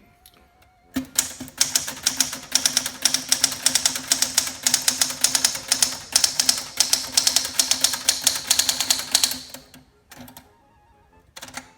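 Typing on a 1963 Pincrest Caravelle, a rebranded Smith Corona manual portable typewriter: a fast, continuous run of type slugs striking paper on the platen. It starts about a second in, pauses briefly near the end, then resumes.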